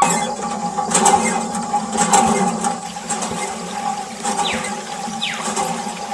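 Water gushing and splashing, from a miniature model pump, over a steady low hum, with scattered clicks and two short falling squeaks in the second half.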